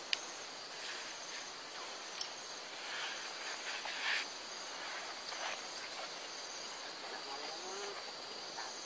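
Steady high-pitched drone of an insect chorus, with a few short knocks and rustles.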